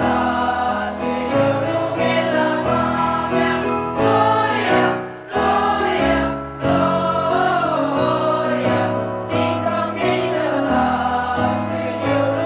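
Boys' choir singing a Christmas song in held notes, with brief breaks between phrases about five and six and a half seconds in.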